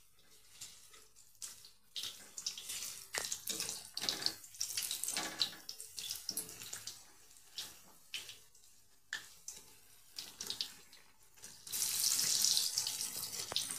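Bread pakoras deep-frying in hot oil in an iron kadhai: the oil sizzles while a slotted metal spoon scrapes and clicks against the pan as the pakoras are turned over. About twelve seconds in the sizzle turns suddenly louder and steady.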